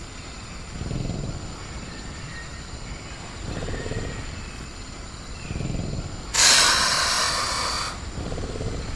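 Sound-effect velociraptor in a cage: low rumbling breaths every two to three seconds, then a sudden loud hiss lasting about a second and a half about six seconds in.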